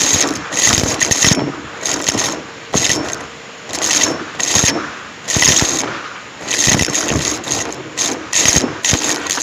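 A Numatic James vacuum cleaner, miked close, running with its tool worked over the floor: irregular surges of suction noise and rattling debris come and go every half second to a second over the steady motor.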